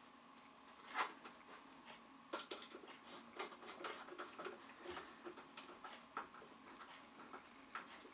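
Phillips screwdriver turning a screw by hand into the games table's frame: a sharp click about a second in, then a quick run of small clicks and scrapes from about two seconds in until near the end.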